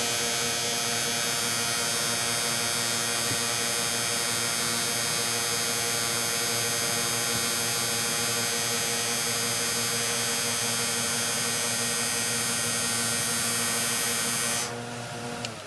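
An electric power tool's motor running steadily: a hum with a dense high hiss over it. The hiss stops about a second before the end, and the hum then cuts off.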